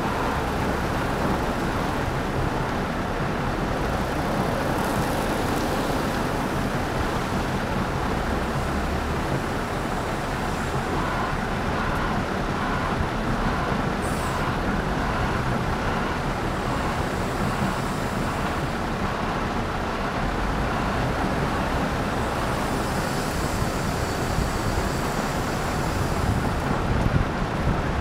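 Volvo 260 wheel loader's diesel engine working as it tips bucketloads of crushed rock into a truck trailer, with stones pouring and rattling into the load.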